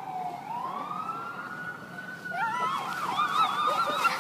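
Emergency-vehicle siren wailing, its pitch sliding down, then rising again and holding. About halfway through, a cluster of short wavering high calls joins in and grows louder.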